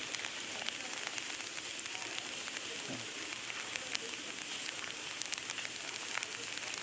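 Rain falling on the reservoir's water and concrete: a steady hiss of light rain with many small, scattered drop ticks.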